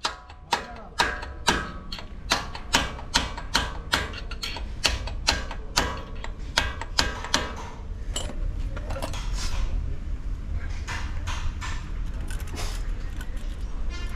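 Repeated metal-on-metal hammer blows during truck wheel hub work, about three a second with a ringing ring after each strike. After about eight seconds the blows turn lighter and sparser.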